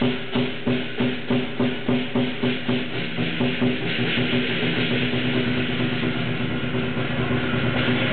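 Chinese lion dance percussion: the big lion drum with cymbals and gong. It beats a steady, evenly spaced rhythm of about two to three strikes a second, then about four seconds in thickens into a fast, continuous roll with ringing metal.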